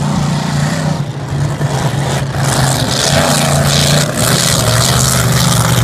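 Racing powerboat engines running at speed as the boats pass close by, growing louder about two seconds in, with a strong hiss over the engine note. The engine note drops in pitch near the end as a boat goes by.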